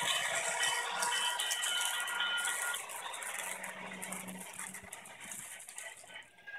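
HO-scale model train rolling past, its wheels clattering on the track over a low motor hum, with the ringing tones of the grade crossing's electronic bell. It is loudest for the first few seconds, then fades as the train moves away.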